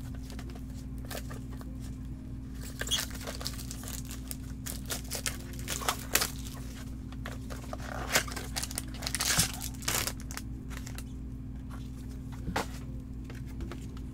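Topps Museum Collection trading card box and its packaging being opened and handled by gloved hands: scattered rustling, crinkling and tearing, busiest about eight to ten seconds in.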